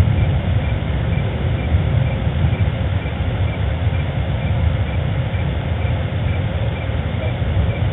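Steady low outdoor rumble at night, with a faint high chirp repeating evenly about two to three times a second.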